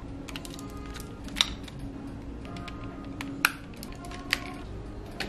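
Hard plastic parts of a DX Super Sentai robot toy clicking and snapping together as it is assembled by hand, with three louder snaps spread through, over faint background music.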